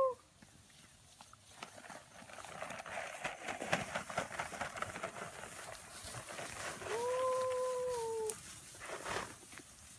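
Rustling through tall pasture grass, then about seven seconds in a single long, held "woo" call to the cattle, steady in pitch and dropping at the very end.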